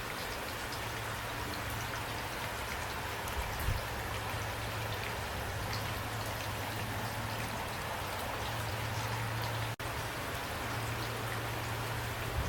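Steady rain falling, with individual drops ticking over an even hiss. A low hum runs underneath and drops out now and then; there is a soft low thump about four seconds in and a split-second gap in the sound near ten seconds.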